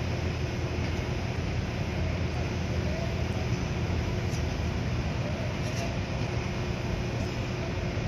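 Steady low rumble and hiss of construction-site machinery and traffic, with a faint constant hum.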